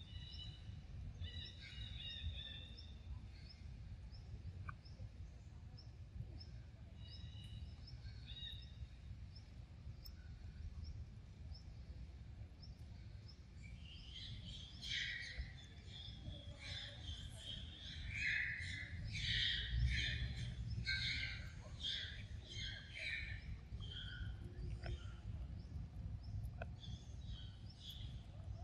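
Birds chirping and calling, a few scattered chirps at first and then a busy run of repeated calls from about halfway through, over a steady low outdoor rumble.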